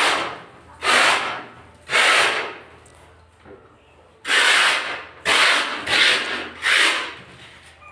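Sandpaper rubbed by hand across a cement-plastered ceiling in hissing strokes about one a second, with a short pause a little under three seconds in. The surface is being scrubbed clean of small grains before putty goes on.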